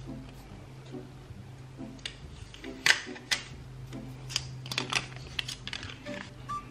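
Thin paper packaging being peeled and handled on a small plastic power adapter: irregular crinkles and sharp clicks of paper flaps being pulled and folded back, loudest about three seconds in and coming in quick clusters near the end.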